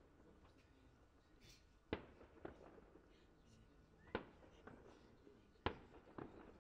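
Distant aerial firework shells bursting: six sharp bangs, each with a short echoing tail, coming in pairs about half a second apart, the loudest near the end.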